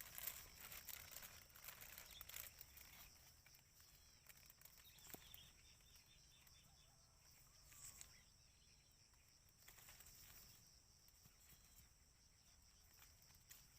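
Near silence: faint outdoor ambience with a steady high hiss and a few light rustles and clicks, more of them in the first few seconds.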